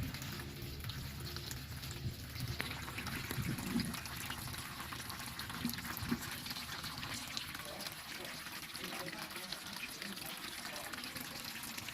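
Quiet water trickling and splashing with many small drips, as from a homemade rain fountain running.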